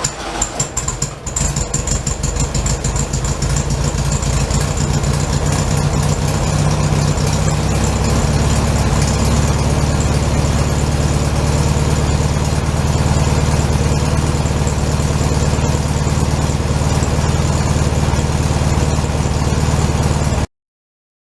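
1967 VW Beetle's air-cooled flat-four engine just after starting, running unevenly for about a second, then idling steadily. The sound cuts off suddenly near the end.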